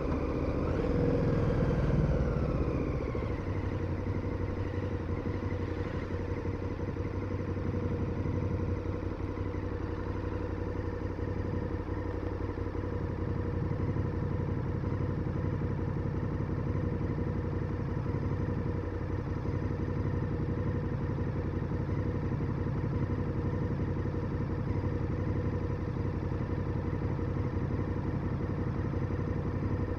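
KTM 1290 Super Adventure's V-twin engine, its revs falling over the first few seconds, then idling steadily.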